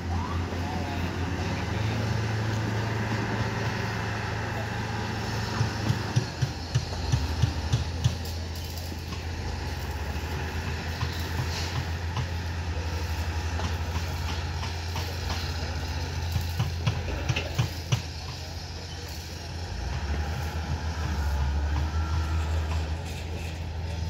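Diesel engine of a wheel loader running steadily, a low hum that swells for a few seconds at a time as it works. Sharp knocks sound in short clusters now and then.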